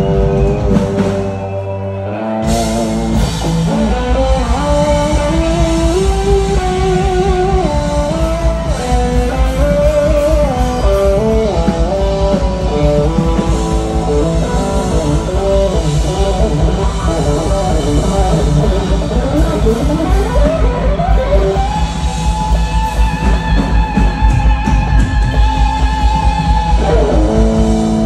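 Live rock band playing loud: an electric guitar plays a winding lead melody over drums and bass, then holds one long note before the band changes near the end. The band drops off briefly about a second in and comes back in full about two seconds in.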